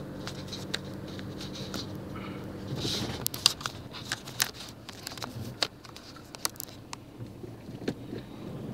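A vehicle's engine running steadily, then dropping to a quieter idle about three seconds in as it slows almost to a stop. Several sharp clicks and knocks sound while it idles, and the engine hum picks up again at the very end.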